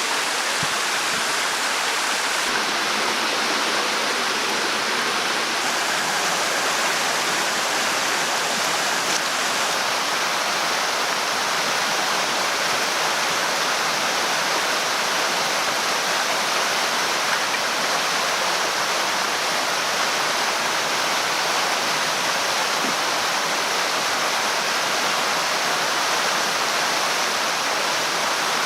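Steady rushing water, an even, unbroken hiss.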